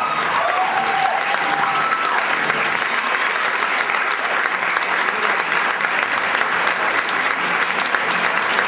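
Theatre audience applauding steadily as the stage goes dark.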